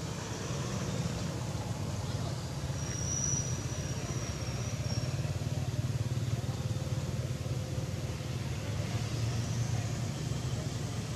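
Steady low rumble of road traffic, cars and motorbikes, with a thin high whistle about three seconds in that lasts about two seconds.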